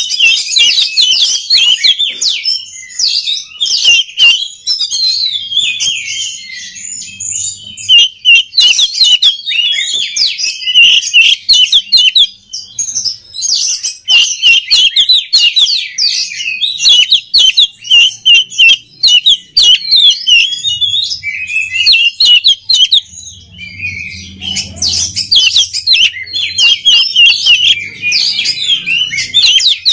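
Oriental magpie-robin singing loudly, in rapid, varied strings of high whistled and chattering notes with a few short pauses.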